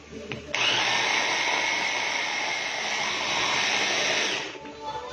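Electric blender running for about four seconds, blending the oregano for the cough syrup; it starts abruptly about half a second in and cuts off near the end, a steady whirring noise with a faint high whine.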